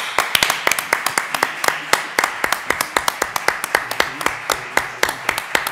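Audience applauding: many people clapping in a dense, steady run of claps.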